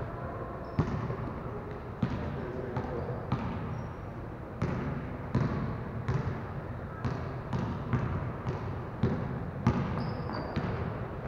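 Basketball being dribbled on a gym floor: a run of irregular bounces, about one or two a second. Brief high squeaks, like sneakers on the floor, come through a few times.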